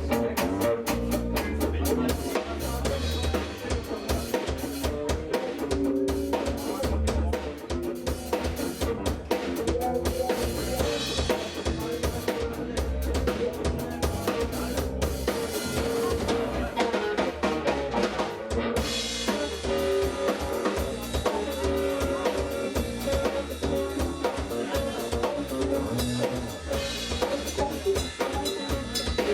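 A live jazz-funk band playing a steady groove, led by a drum kit with snare and bass drum and a moving bass line underneath, with sustained pitched notes from another instrument above. The cymbal hiss cuts out briefly about two-thirds of the way through, then comes back.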